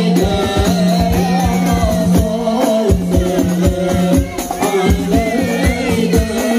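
Men's voices singing a devotional chant together through a PA system, backed by rebana frame drums beating a quick, steady rhythm.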